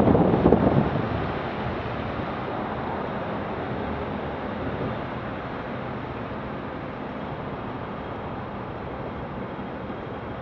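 A car on a wet road heard from inside the car: a louder rush of tyre and road noise for about the first second, then a steady low hum once the car has come to a stop.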